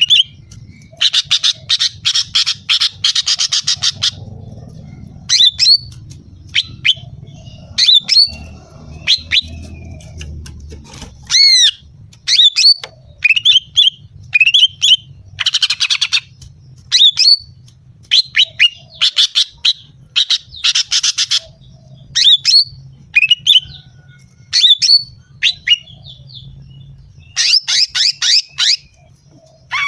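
Female greater green leafbird (cucak ijo) calling: sharp down-slurred chirps between several fast rattling call trains, a female's call to draw males. A faint low rumble runs underneath.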